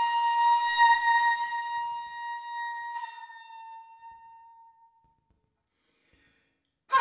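Solo shakuhachi holding one long note that slowly fades out, followed by about two seconds of silence; the next phrase begins right at the end.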